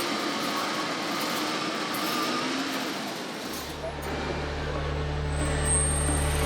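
Busy indoor noise with no clear single source, then a steady low drone of constant pitch starting about halfway through.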